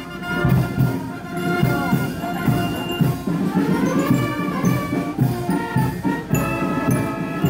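Military brass band playing a marching tune, with held brass notes over a steady drum beat.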